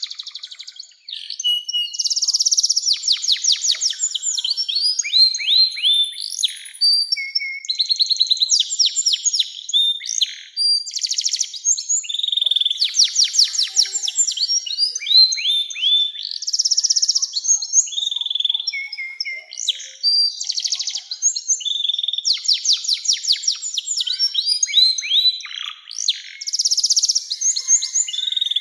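Canary singing a long continuous song of rapid trills and falling whistled sweeps, with a short break about a second in.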